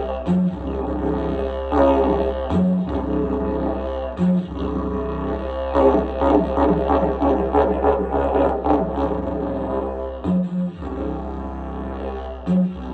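Didgeridoo played with a steady low drone and a fast, rhythmic pattern worked into it. The drone breaks off briefly about five times into a short higher note.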